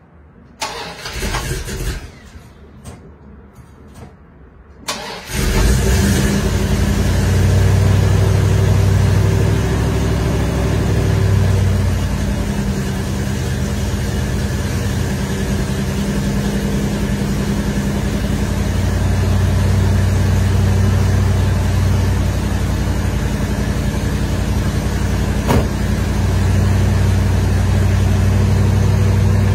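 1975 Dodge Ramcharger's engine cold-starting: a few seconds of short cranking bursts, then it catches about five seconds in and runs steadily.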